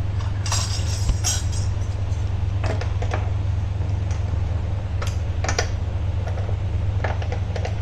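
A steady low hum with scattered light clicks and knocks, a few seconds apart.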